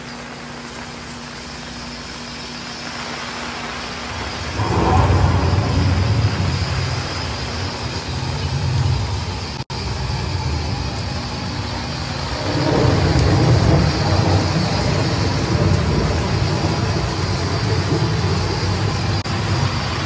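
Artificial rain from an aviary misting system pattering steadily on an umbrella and stone paving, with a recorded thunder sound rumbling in twice, about five seconds in and again about halfway through, each roll lasting several seconds.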